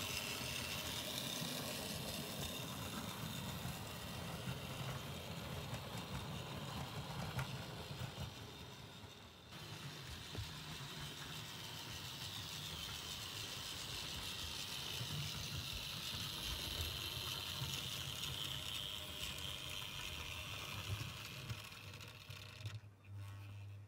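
Model A4 Pacific locomotive 'Golden Fleece' running on the track with its coaches: a steady whirr from its electric motor with the rattle of wheels over the rails.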